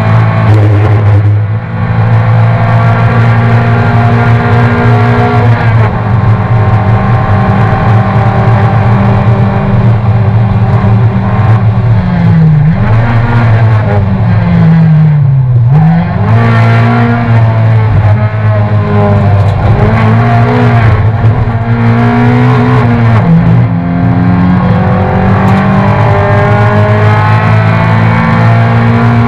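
Toyota race car's engine heard from inside its cockpit, running hard at high revs for long stretches. In the second half its pitch drops and climbs back several times as it lifts off and changes gear for corners.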